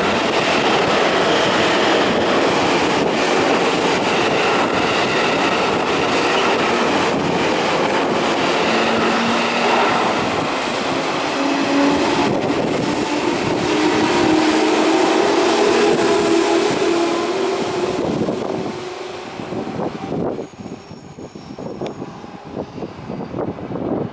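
JNR 115 series electric train pulling away close by. Its wheels knock over the rail joints at a quickening pace and a traction-motor whine rises in pitch as it gathers speed. The sound falls away sharply about 18 to 20 seconds in as the last car passes.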